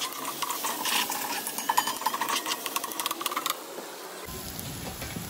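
Steel spoon scraping and clicking against a kadai while chopped onions are stirred, over a steady sizzle of onions frying in hot oil. The stirring stops about three and a half seconds in, leaving only the sizzle.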